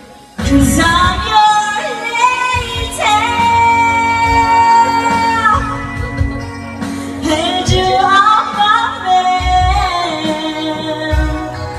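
A woman singing into a microphone over a backing music track, holding several long notes. The song picks up after a brief pause at the very start.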